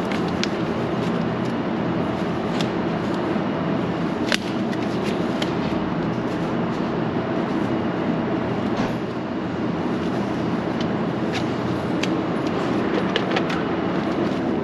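A steady mechanical rumble, like a motor running, with scattered clicks and knocks; one sharp knock about four seconds in.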